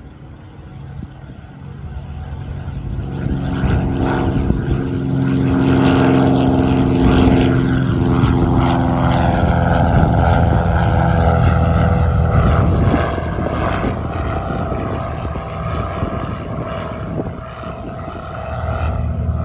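Cessna 182 Skylane's six-cylinder piston engine and propeller running hard as the plane flies low overhead and climbs away. It grows loud over the first few seconds, drops in pitch as it passes, then fades somewhat.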